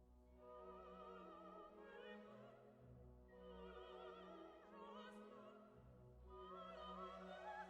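Faint operatic classical music: long sung notes with heavy vibrato over a low, steady accompaniment.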